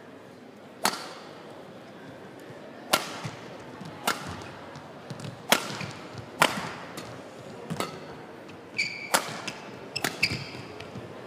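Badminton rally: rackets striking the shuttlecock about eight times, roughly a second apart, each hit a sharp crack. Short high squeaks of court shoes come in the last few seconds.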